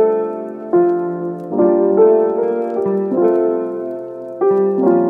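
Background piano music: chords struck every second or so, each ringing on and fading before the next.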